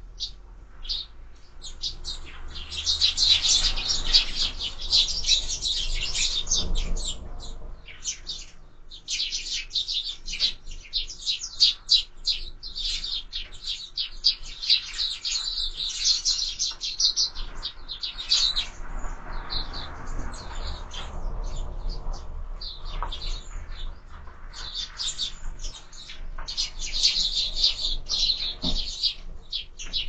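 A flock of sparrows chirping, with many rapid, overlapping short chirps that come in bursts separated by a few brief lulls.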